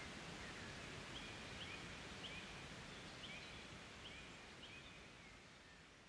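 Quiet rural ambience with a bird giving a series of faint, short chirps from about a second in; the whole sound fades out toward the end.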